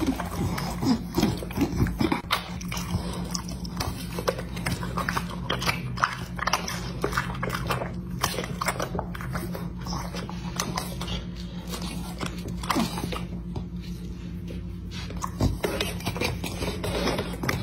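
A dog biting into and chewing fresh strawberries: a quick, uneven run of chewing, smacking and lip-licking sounds over a steady low hum.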